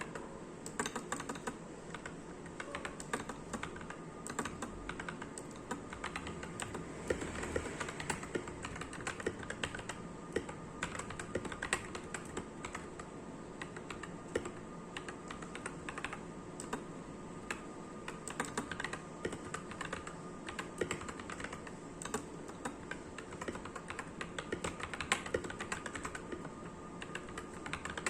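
Typing on an Akko 3084 v2 ASA mechanical keyboard with Akko CS Ocean Blue switches: a steady, irregular run of keystrokes clacking, several a second throughout.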